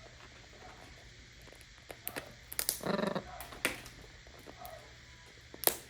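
Parrot working a nut shell with its beak: several sharp cracks and clicks, the loudest near the end, with a short call about three seconds in.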